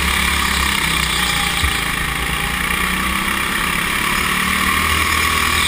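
Go-kart engine running steadily at speed, heard onboard with a steady rush of wind and track noise over the camera microphone. A single short knock about a second and a half in.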